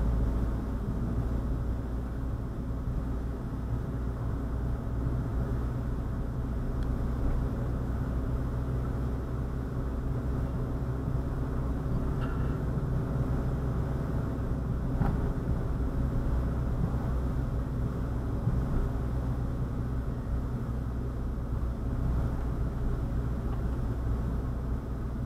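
Steady low rumble of a motor vehicle running: a low engine hum with road noise.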